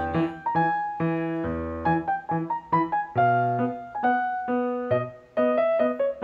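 Solo piano background music: a slow melody of single notes, each struck and then fading.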